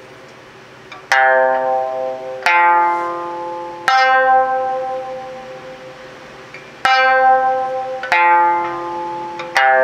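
Sanshin with a tightly stretched python-skin body (830 Hz, 11.5-bu stretch, the high-register setting) plucked with a plectrum: six single notes, each ringing out and fading before the next.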